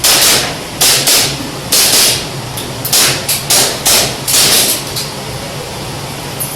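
An airsoft pistol fired in a rapid string during a practical shooting stage. It gives about nine sharp, irregularly spaced shots that stop about five seconds in.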